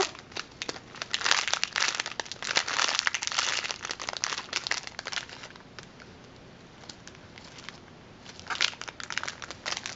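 Clear plastic bag crinkling as hands turn and handle a foam squishy sealed inside it. A dense crackle runs for about the first five seconds, then it goes quiet, with a shorter burst of crinkling near the end.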